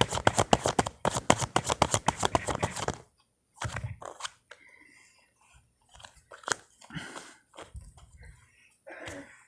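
Tarot deck shuffled by hand: a fast run of card flicks for about three seconds, then scattered soft taps and rustles of the cards.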